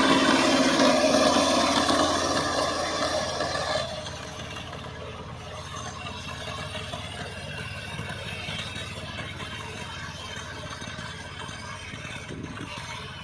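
Power tiller engine running with a rattle, loud for about the first four seconds and then suddenly much quieter as it carries on.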